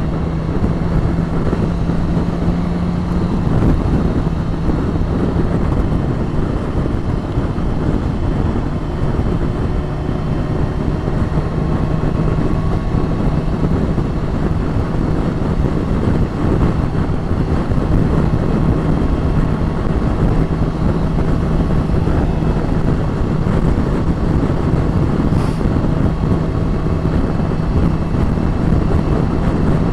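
Motorcycle cruising at a steady speed on an open fast road. A constant engine note runs under heavy wind rush over the microphone.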